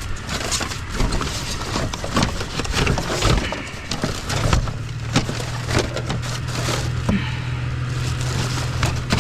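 Pieces of scrap, including aluminum, being rummaged through and dropped, a busy string of knocks, clinks and clatters. A steady low hum comes in about four and a half seconds in.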